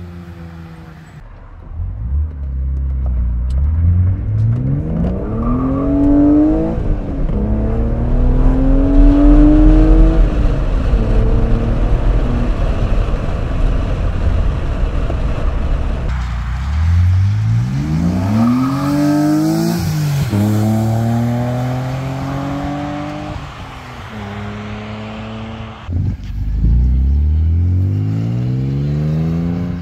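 BMW Z3 M Coupe's S52 straight-six through an Eisenmann Race exhaust, accelerating hard several times. The pitch climbs, drops at each upshift and climbs again.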